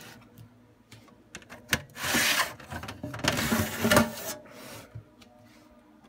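Dell PowerEdge M610 blade system board being lifted and slid out of the blade's chassis tray: a click, then two rasping scrapes of about a second each as the board rubs along the tray, and a fainter scrape after.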